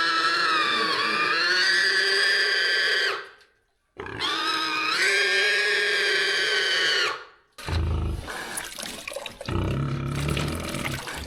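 Domestic pig squealing as it is caught for slaughter: two long, loud, high-pitched screams with a brief break between them, then lower, rougher noise over the last few seconds.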